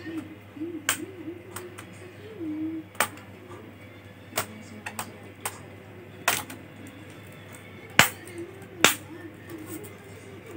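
Sharp, irregular clicks and taps from a laptop's casing and small tools being handled during disassembly, about seven in all, the two loudest near the end. Faint background music with a wavering melody runs underneath.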